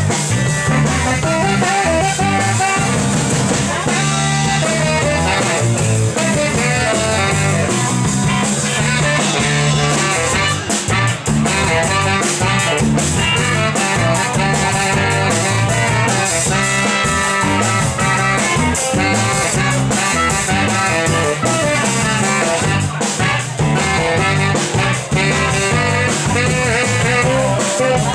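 Live band playing an instrumental passage led by guitar over a drum kit.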